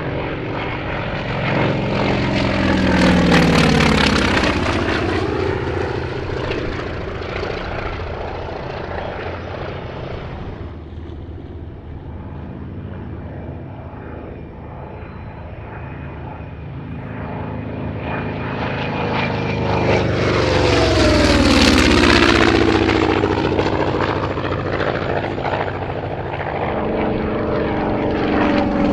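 Piston-engined WWII warplanes making low passes. A Douglas SBD Dauntless's radial engine swells and goes by about three seconds in, its pitch dropping as it passes. A second, louder pass comes around twenty-two seconds, and a Vought F4U Corsair's radial engine grows louder near the end.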